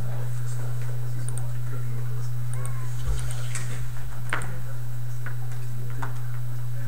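Steady low electrical hum, with a few faint scattered clicks and knocks and a soft thump about three seconds in.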